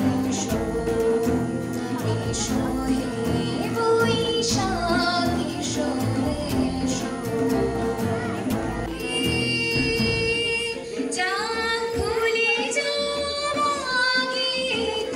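A woman singing into a microphone, accompanied by a harmonium's steady drone and tabla; the low drum accompaniment thins out about ten seconds in.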